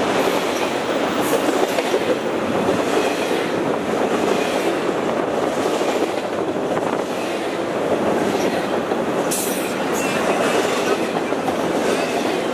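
Double-stack intermodal freight train rolling past at close range: the steady noise of its wheels on the rails and its container cars going by, with a short high hiss about nine seconds in.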